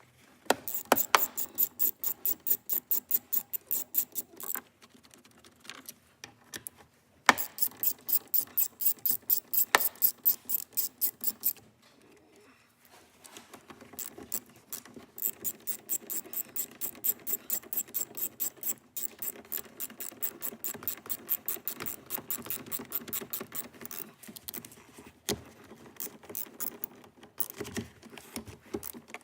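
A ratchet wrench with a 10mm socket clicking quickly and evenly, several clicks a second, as it backs out the bolts holding a car's side-view mirror. The clicking comes in three long runs with short pauses between them.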